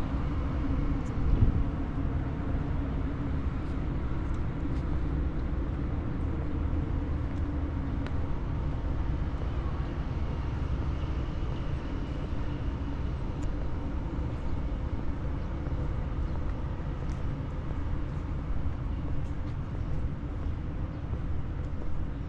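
Steady outdoor ambience, mostly a low rumble of road traffic, with a few faint ticks.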